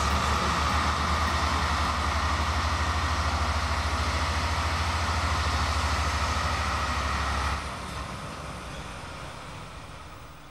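Diesel locomotive engine idling with a steady, pulsing low rumble. It drops away suddenly about three-quarters of the way through and then fades.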